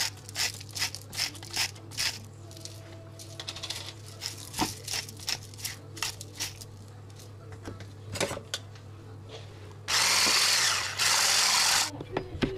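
Knife chopping dill on a cutting board: a quick run of chops, about three or four a second, then scattered single chops over a steady low hum. Near the end come two loud bursts of rushing noise, about a second each.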